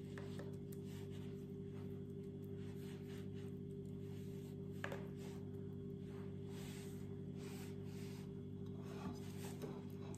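Soft rubbing and rustling of hands rolling and pressing a buckwheat cutlet in dry breadcrumbs, with one light tap about halfway through, over a steady low hum.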